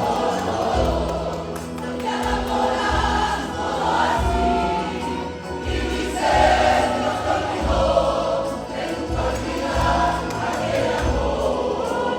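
A church choir singing a gospel worship song, with a bass line pulsing underneath in steady repeated notes.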